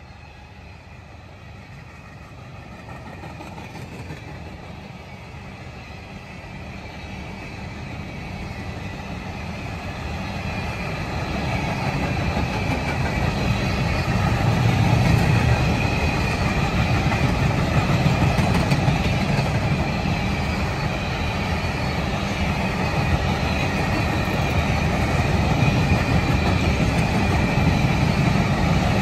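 CSX freight train approaching and passing on the rails. A rumble of wheels and cars grows steadily louder over about fifteen seconds, then holds steady and loud.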